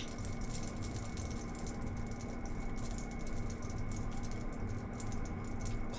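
Hot cooking oil left in the frying pan crackling faintly and steadily in fine, irregular ticks, over a steady low hum.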